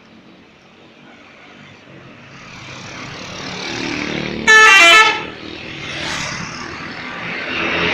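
An Agam Tunggal Jaya bus approaches and sounds its telolet musical air horn: a very loud burst of about half a second, several notes stepping down in pitch, about four and a half seconds in. The bus's engine and tyre noise swells before it and fades after.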